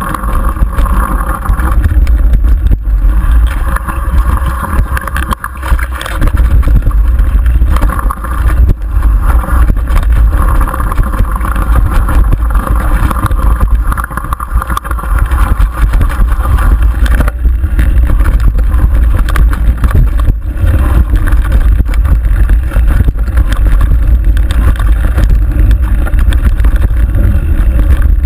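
Mountain bike descending a rough dirt singletrack: steady wind rumble on the camera's microphone mixed with the rattle and frequent knocks of the bike and tyres over the ground.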